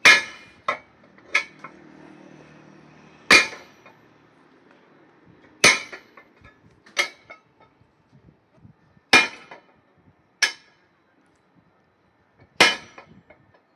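A series of sharp, hard strikes with a slight ring, like metal or glass being hit. There is a loud strike every two and a half to three and a half seconds, often followed about a second later by a lighter one.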